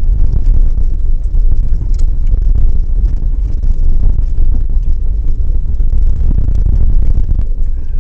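Steady heavy rumble of a small trailer being towed over a dirt road, picked up by a camera mounted on its tongue, with wind buffeting the microphone and faint clicks and rattles.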